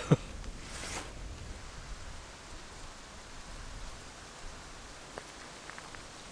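Soft, steady outdoor hiss, with a brief rustle about a second in and a few faint ticks near the end.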